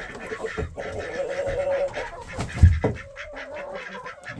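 A coop flock of chickens and ducks clucking and calling, with drawn-out calls, and a dull thump about two and a half seconds in.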